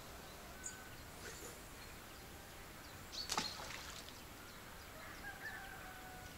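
Faint outdoor ambience with a few short bird chirps and whistles, and one sharp click just over three seconds in.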